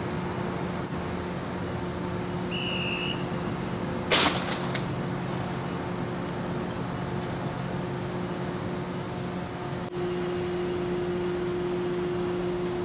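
A single sharp, loud shot from a ship's line-throwing gun firing a mooring line toward the quay, about four seconds in, over the steady hum of the ferry's machinery. A short high whistle sounds just before the shot.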